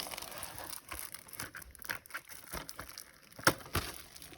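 Plastic wrapping on a DVD case crinkling as fingers pick at it, with scattered light clicks and taps on the plastic case and two sharper knocks about three and a half seconds in.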